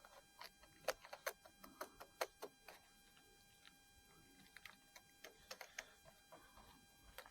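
A scatter of light clicks and taps from parts being handled, in two irregular clusters of quick knocks against a quiet background.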